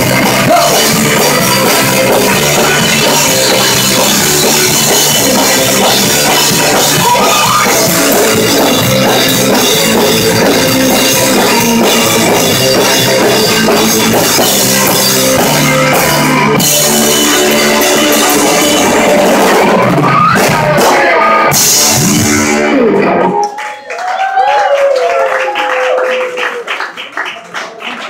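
Live rock band playing loudly on electric guitar and drum kit. The song stops abruptly about 23 seconds in, and is followed by scattered clapping and shouts.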